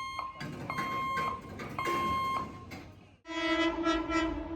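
Repeated electronic warning beeps, each about half a second long and a little over one per second, sound over a low rumble. About three seconds in the sound cuts off abruptly and a louder train horn starts, holding one steady note.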